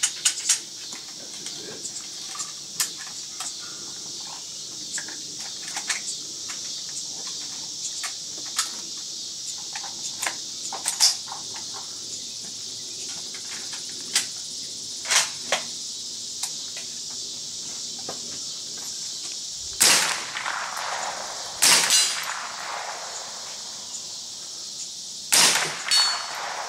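Shots from an M16-lookalike rifle: a few loud, sharp cracks in the last seven seconds, with fainter cracks scattered before them. A steady high insect buzz runs underneath.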